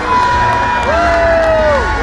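Loud show music with voices holding long sung notes, one sliding down and breaking off near the end, over the steady din of a large crowd.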